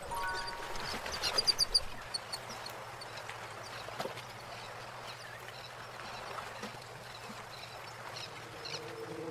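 Paintbrush dabbing acrylic paint onto paper: faint, irregular tapping and scratching of the bristles. About a second in comes a quick run of sharp clicks, the loudest sound here.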